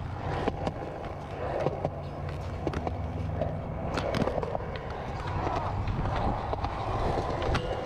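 Inline skate wheels rolling over concrete, a steady low rumble with scattered sharp clicks.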